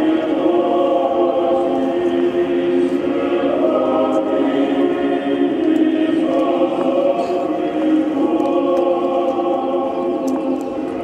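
A choir singing slow chant in sustained chords, with the chords shifting every second or two.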